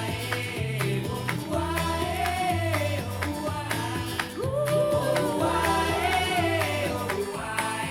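A pop song with singing over bass and drums, played back through a pair of computer speakers and recorded by microphone.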